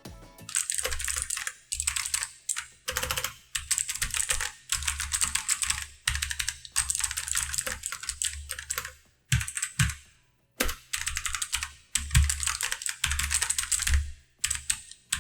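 Cosmic Byte CB-GK27 mechanical keyboard with blue switches being typed on fast, in runs of rapid keystrokes about a second long broken by short pauses. After a year of use, the owner finds its sound still like new.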